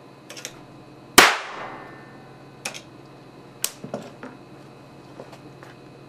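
A high-voltage capacitor bank, 70 µF charged to 6,400 volts, discharging through its probe into a remote control's circuit board: one loud, sharp crack about a second in that rings out briefly. A few light clicks follow.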